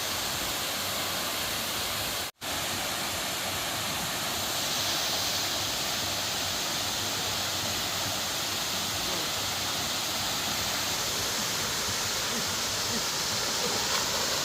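Steady rushing of a waterfall, with a momentary drop-out to silence about two seconds in.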